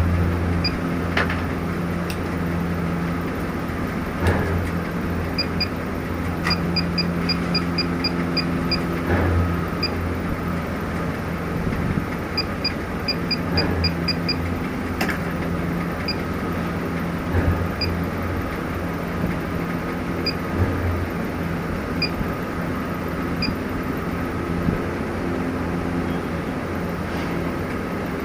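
Short high electronic beeps from an ABB CP430 touch panel, singly and in quick runs of four to seven, as its screen is pressed during testing. Under them is a steady low hum with now and then a brief low rumble.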